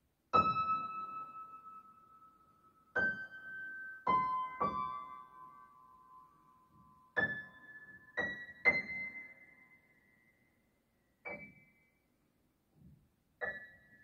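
Slow, sparse solo piano music: single notes and soft two-note chords struck one to three seconds apart, each ringing out and fading away.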